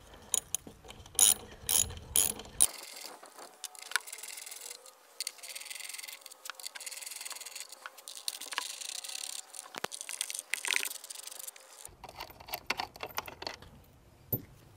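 Hand ratchet with a 1/2-inch socket clicking in short runs as it backs out the six bolts holding the volute on a booster pump, with a few scattered metal clicks in between.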